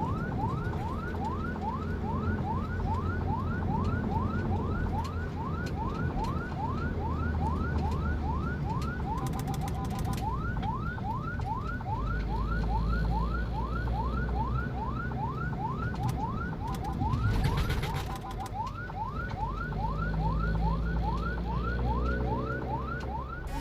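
Ambulance siren in a fast yelp: rapid rising sweeps, about three a second, each dropping back abruptly, over a steady low vehicle rumble. The pattern breaks briefly near ten seconds and again around seventeen seconds with a short burst of noise.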